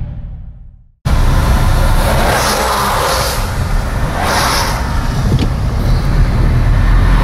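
The tail of the intro sound fades out over the first second, then a cut to loud, steady road and engine noise of a car driving, heard from inside the car, with a few short hissy swells.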